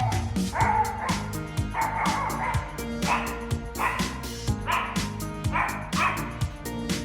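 Dog barking in a run of short barks, about one a second, over background music.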